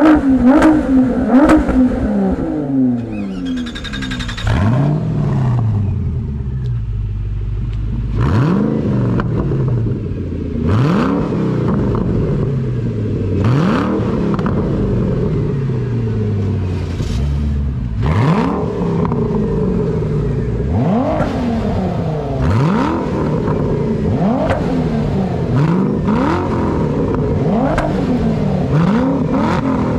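Ford GT engines with straight-piped exhausts revved while standing still. Repeated throttle blips, each rising sharply in pitch and falling back more slowly, about every two to three seconds.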